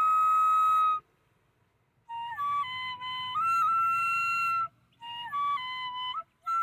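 Solo flute music: a slow melody of long held notes and small steps in pitch. It stops for about a second early on, then pauses briefly twice more between phrases.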